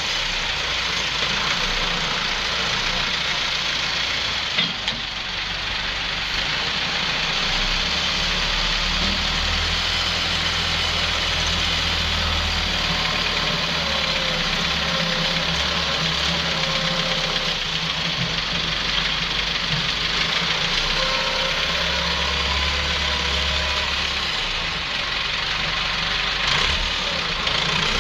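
Wheel loader's diesel engine running steadily while working, its low rumble swelling and easing several times as the load and revs change. There is a brief knock about five seconds in.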